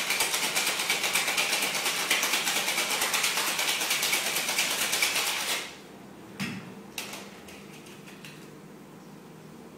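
Ice rattling hard in a cocktail shaker being shaken in quick, even strokes; it stops suddenly about five and a half seconds in, followed by a few sharp knocks.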